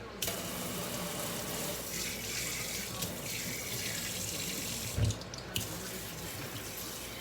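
Kitchen faucet turned on suddenly, water running steadily into the sink, with a brief break and a low knock about five seconds in.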